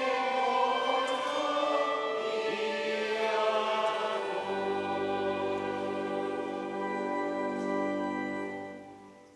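Choir singing the close of a hymn with accompaniment, ending on a long held chord that fades away near the end.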